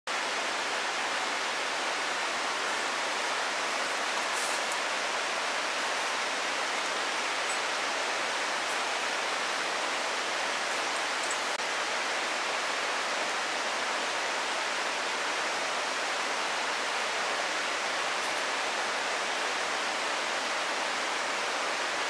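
Steady rush of fast-flowing mountain water, an even hiss with no breaks.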